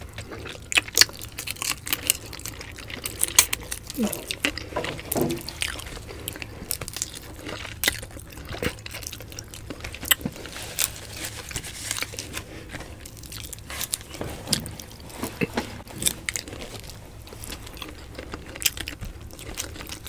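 Close-miked eating by hand: chewing, lip-smacking and finger-licking as tilapia is eaten, with a steady spatter of short, sharp clicks and small crunches.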